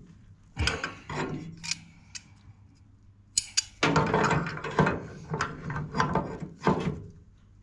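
Metal hand tools on a brass compression fitting: water-pump pliers and a spanner clicking and knocking as they grip and tighten the nut onto a lever ball valve. A few separate clicks come first, then a denser run of clatter and scraping in the second half.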